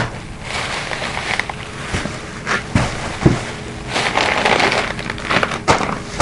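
Plastic bag crinkling and rustling as it is handled, in irregular swells, with a few sharp knocks.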